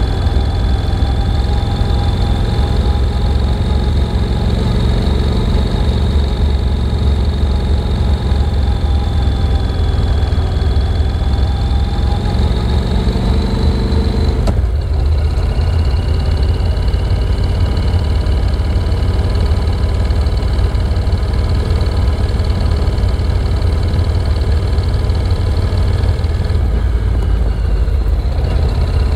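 Motorcycle engine running at a steady, gently wavering pitch, with a sudden change in its note about halfway through.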